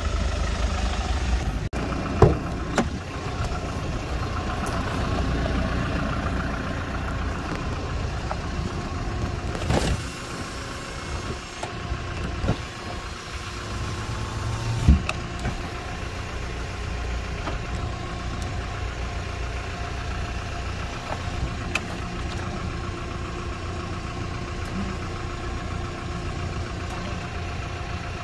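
Hyundai Porter II cargo truck's diesel engine idling steadily, with a few scattered knocks, the loudest about 15 seconds in.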